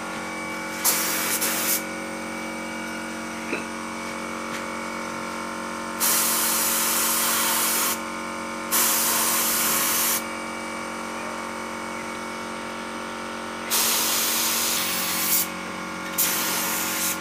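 Gravity-feed spray gun spraying PU wood polish in five separate bursts of loud hiss, each a second or two long, as the trigger is pulled and released. A steady hum runs underneath throughout.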